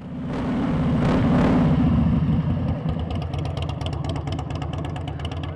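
Motorcycle engine revving up about a second in, then running steadily with a fast, even pulse.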